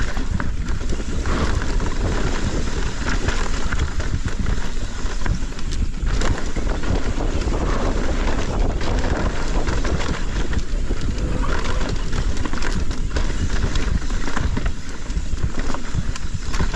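Mountain bike riding down a dirt trail: steady wind rush on the camera microphone, with the tyres and the bike clattering continuously over bumps.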